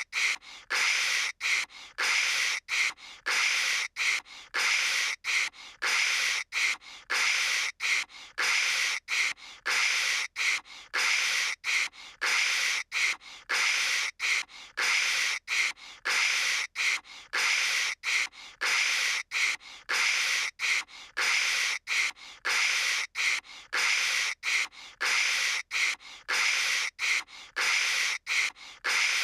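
A person imitating telephone static with the mouth: a hissing, crackling 'kshh' noise in short, evenly repeated bursts separated by brief gaps, faking a bad phone connection.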